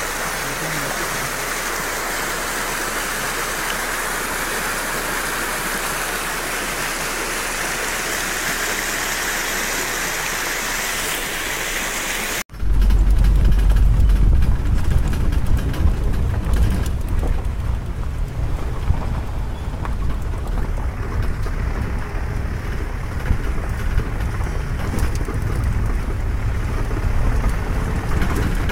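A steady rushing hiss of flowing stream water. About twelve seconds in it cuts off abruptly and gives way to a louder, low rumble of a safari vehicle driving along a rough dirt forest track, with engine and wind on the microphone.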